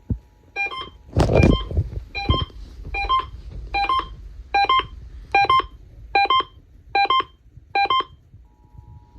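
Emergency alert two-tone attention signal pulsing in about ten short beeps, a little more than one a second, signalling an AMBER alert. A loud, deep rumbling thump comes about a second in, and a faint steady tone sounds before and after the beeps.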